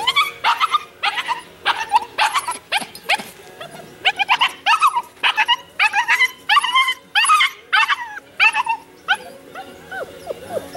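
A five-week-old puppy giving a rapid run of short, high-pitched yips and barks, about two to three a second, with a short pause near the middle. The calls stop about a second before the end, leaving a few faint rising whines.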